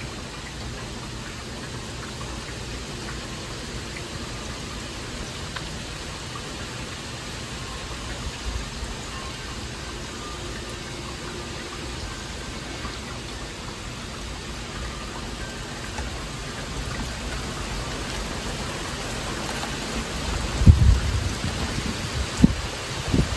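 Heavy rain falling steadily. About twenty seconds in, a low rumble of thunder breaks in over the rain and is the loudest sound, with a second rumble near the end.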